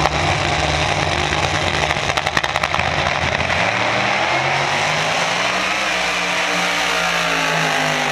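V8 car engine running hard with a loud exhaust, a rapid burst of crackles about two seconds in, its note climbing slowly in the second half.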